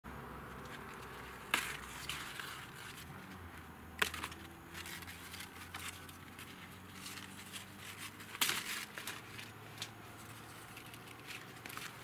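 Hands moving through a fig tree's leaves and branches to pick figs: leaves rustling and crinkling, with three sharp clicks along the way.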